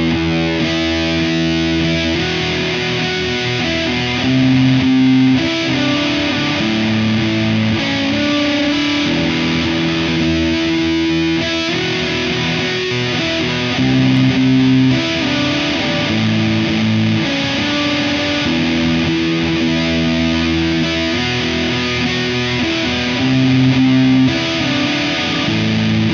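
Electric guitar played through the Tempus Fuzz breadboard prototype, a fuzz and echo circuit built around a PT2399 delay chip, giving a heavily distorted tone. Long held notes change every second or two in a riff that comes round again about every ten seconds.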